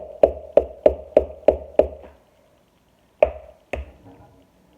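An egg tapped against the rim of a mixing bowl to crack it: a quick run of taps, about three a second, each with a short ring from the bowl, then after a pause two harder knocks.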